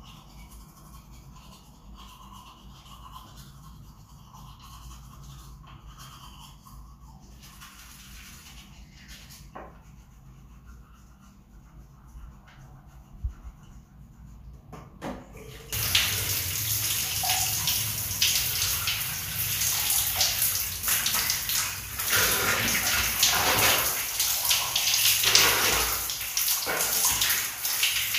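A toothbrush scrubbing teeth, faint. About halfway through, shower water suddenly starts spraying loudly and splashing on a person.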